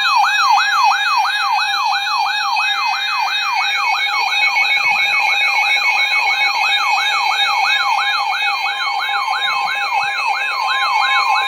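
Electronic siren-style emergency alert tone: a rapid falling yelp that repeats about three times a second over steady sustained tones, with another steady tone coming in near the end.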